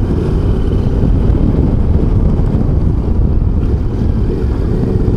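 Motorcycle riding along at low speed, its engine running under a loud, steady low rumble of wind on the microphone.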